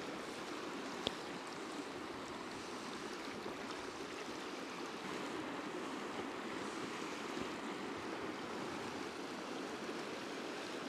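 Steady rush of a trout stream's riffles flowing past, with one short click about a second in.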